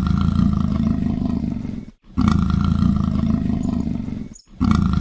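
Leopard growling in three long, deep, rasping roars of about two seconds each, with brief pauses between them.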